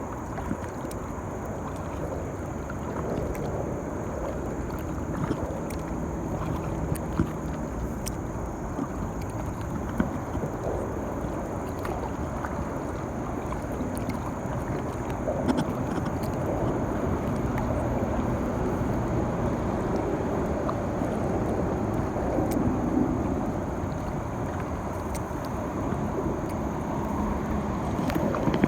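River water washing and gurgling around a moving kayak, a steady noise with a few short sharp knocks scattered through.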